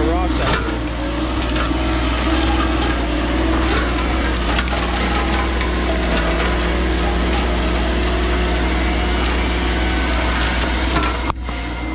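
CAT 304 mini excavator running steadily while its Blue Diamond hydraulic brush cutter grinds and splinters brush and wood, a constant crunching over a low engine hum. There is a brief break near the end.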